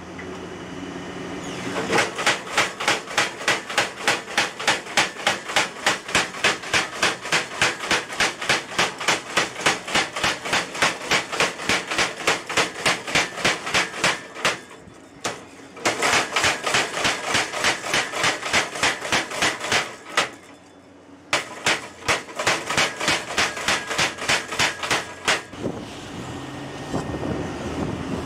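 Motor-driven power hammer (tire hammer) forging hot leaf-spring steel held in tongs: rapid, evenly spaced blows in three runs, a long one of about twelve seconds and then two short ones. Between the runs the machine hums steadily.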